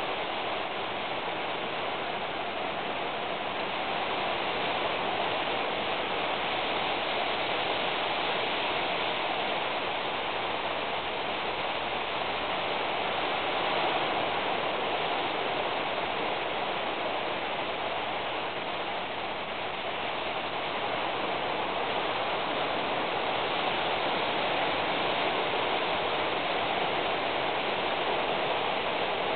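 Steady, even rushing noise with no distinct sounds standing out of it.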